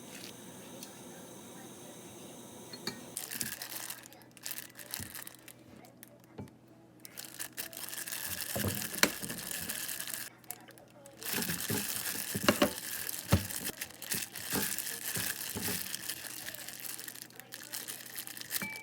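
Plastic packaging being handled: crinkling and rustling with scattered sharp clicks and knocks, starting about three seconds in and going on with short pauses.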